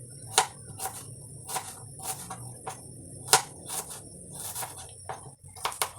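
Kitchen knife chopping vegetables on a chopping board: a dozen or so sharp knocks, roughly two a second at an uneven pace, two of them much louder than the rest.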